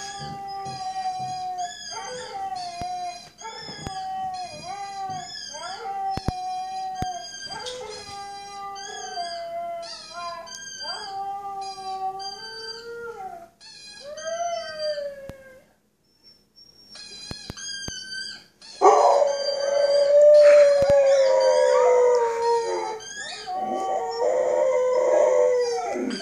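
Husky howling: a run of short, repeated howls, each rising and falling, then a gap of about three seconds. About nineteen seconds in comes a louder, longer howl that wavers and slides down in pitch.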